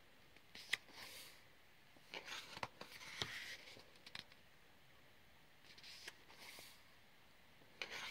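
Faint paper handling, most likely pages of a colouring book being turned: soft papery swishes with small clicks in several short bouts, with quiet gaps between.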